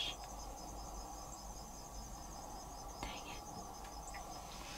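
Insects, crickets by the sound of it, chirping in a steady chorus of rapid, evenly spaced high pulses.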